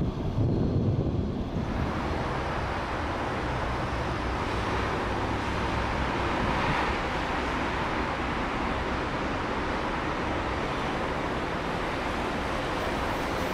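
A CBTU metro electric train rumbling past for the first second or two, then a steady wind-like rushing with no distinct machine sound.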